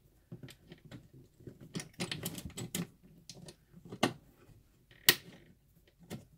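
Irregular small clicks and taps of a thick battery cable lug and its hardware being worked by hand onto a busbar stud. There is a sharper click about four seconds in and the loudest about five seconds in.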